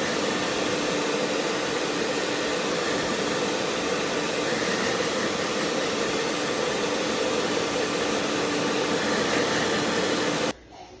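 Blow dryer blowing steadily on a wet cat, a loud even rush of air with a steady motor hum; it cuts off abruptly near the end.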